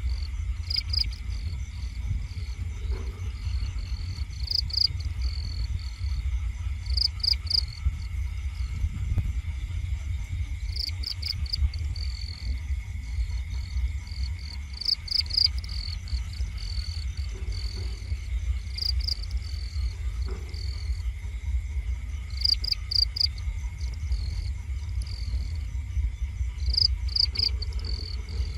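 Night insects chirping: short high-pitched pulsed chirps repeat every few seconds over a steady thin high drone, with a constant low rumble underneath.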